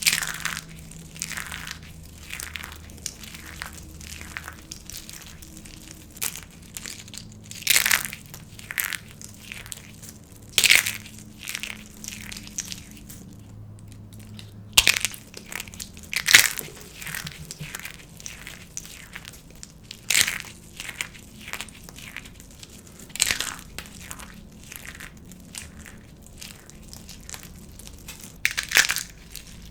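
Dry soap being crushed and snapped, with irregular crisp crunches and cracks every few seconds and faint crackling between them.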